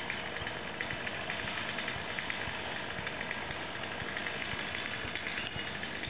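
A small engine idling steadily.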